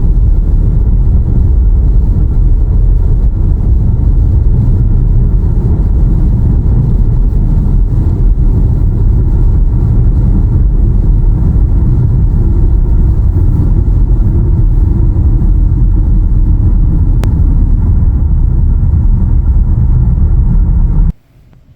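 Car on the move, heard from inside the cabin: a steady, loud low rumble of tyres and engine. It cuts off suddenly near the end.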